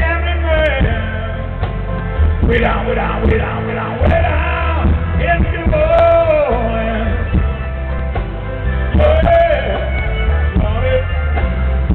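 Live rock band playing, with a lead singer's long, bending sung lines over keyboard, guitar, bass and drums.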